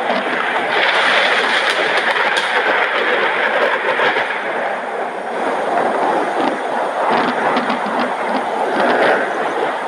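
Heavy rain pouring down in a thunderstorm: a loud, steady rush of noise with scattered sharp clicks of drops striking.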